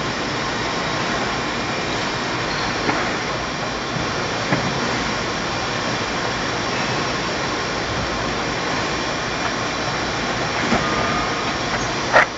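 Industrial paper guillotine running with a steady, even mechanical hiss, with a few light clicks as a paper stack is slid across its table and one sharp knock near the end.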